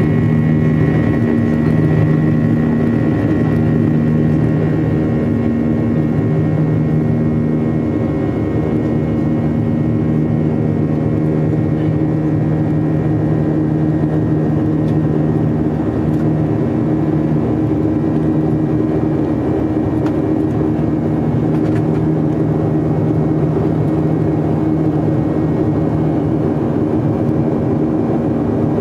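Jet airliner cabin noise in flight during the climb after takeoff: the engines run steadily, a constant hum with several steady tones over a rushing air noise.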